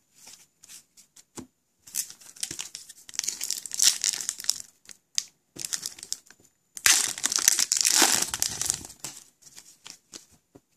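A hockey card pack's wrapper being torn open and crinkled by hand, in two bouts of crinkling, about two seconds in and again about seven seconds in, with light clicks of card handling between.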